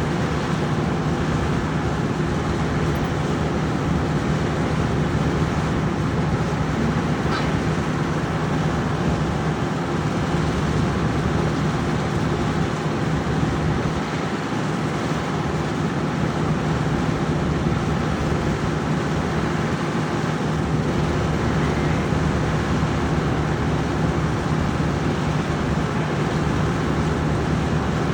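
A farm machine's engine running steadily at a constant speed, a continuous even drone. There is a faint short tick about seven seconds in.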